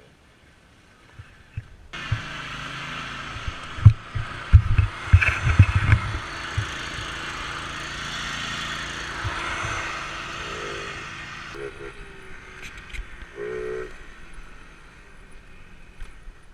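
A small engine running, with a cluster of heavy knocks and thumps a few seconds in. The sound starts abruptly about two seconds in and drops to a quieter level partway through.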